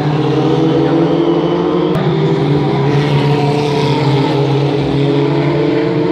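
Historic Formula Ford racing cars, their 1600 cc Ford Kent four-cylinder engines running hard, passing one after another through a corner. Several engine notes overlap, each rising and falling in pitch as the cars pass. There is a single sharp click about two seconds in.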